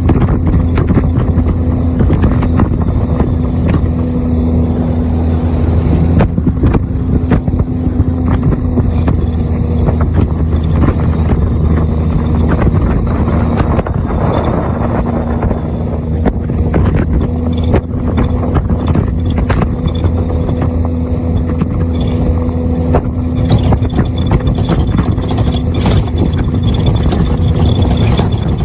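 Jet boat engine running steadily under way, with a rush of wind and water and frequent short knocks.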